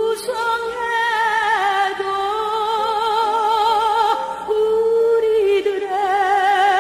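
Background music: a slow melody held on long notes with heavy vibrato.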